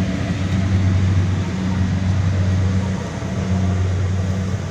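Kubota DC70 rice combine harvester's engine running at a steady drone, with a low even hum.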